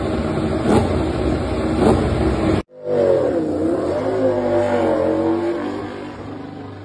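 Ducati MotoGP race bike's V4 engine blipped in short revs about once a second. After a sudden cut, an engine runs with a wavering pitch that dips, rises and settles, fading near the end.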